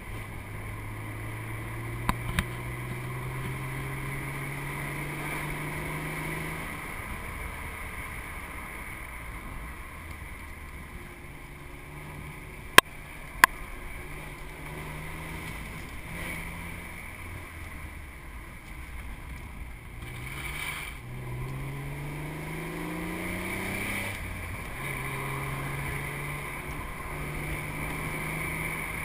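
Cobra's V8 engine pulling uphill under load, heard from on board with wind rush: the engine pitch climbs for several seconds, drops, and climbs again later as it goes through gears and corners. A few sharp knocks cut through, the loudest two a little under halfway through.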